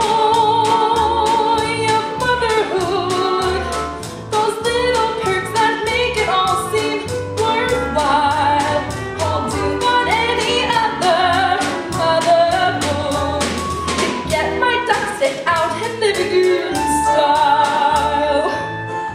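A woman singing a musical-theatre song over band accompaniment with a steady beat. Long notes with vibrato are held near the start and again near the end.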